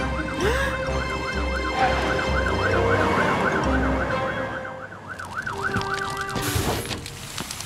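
Cartoon fire engine siren wailing up and down, about two to three cycles a second, stopping about six and a half seconds in. A low pulsing rumble runs beneath it for the first four seconds.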